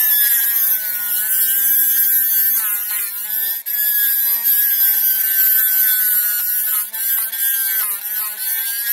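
Small high-speed rotary tool grinding out the rivet in a diecast metal toy car's roof. A steady high whine with a hiss of grinding, its pitch sagging and wavering as the bit bites, with a few brief dips.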